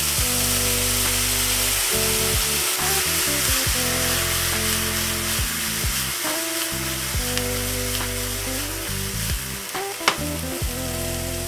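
Diced meatballs with green onions and garlic sizzling in a hot nonstick skillet as they brown, stirred with a spatula and tossed in the pan. Background music plays underneath, and there is a sharp tap about ten seconds in.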